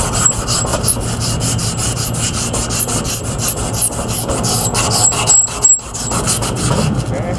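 Emery cloth rubbed rapidly back and forth around the rusted shaft of an air-conditioner condenser fan motor, a quick rasping stroke several times a second. The rust is being sanded off so the fan blade hub can slide off the shaft.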